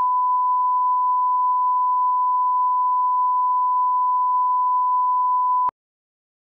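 A steady pure test tone at one unwavering pitch, the 1 kHz line-up tone laid at the head of a video tape. It cuts off abruptly about five and a half seconds in.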